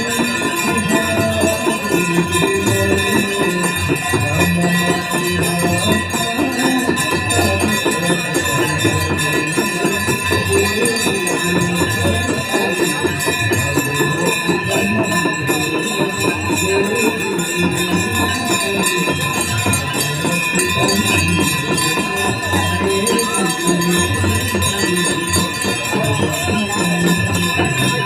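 Ganga Aarti devotional music: a melody over continuous ringing bells and jingling percussion, steady and unbroken.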